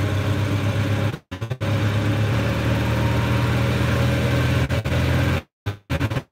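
Golf cart running while being driven: a steady low motor hum with road and wind noise. The sound cuts out completely for a moment about a second in, and several times near the end.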